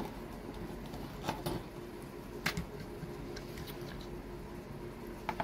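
Soldering and handling work on a power-supply circuit board: a few light ticks and taps over a steady low hum.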